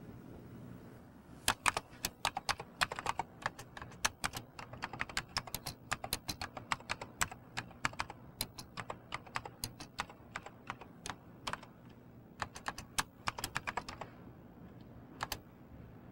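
Typing on a computer terminal keyboard: a long run of irregular keystroke clicks that begins about a second and a half in and stops about two seconds before the end, with two last keystrokes just after.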